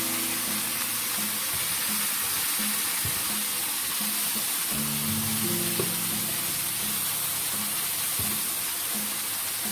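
Ground meat and winter melon sizzling in a nonstick frying pan, with a few scrapes and taps of a spatula as the food is scooped into a stainless steel pot. Soft background music of low notes plays under it.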